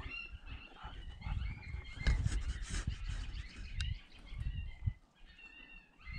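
Wind gusting against the microphone, with repeated short, high-pitched animal calls in the background and a couple of sharp clicks.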